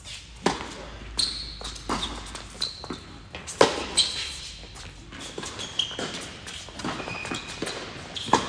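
Doubles tennis point: a serve, then a rally of racket strikes on the ball and ball bounces on the hard court, with short high squeaks of tennis shoes between the hits.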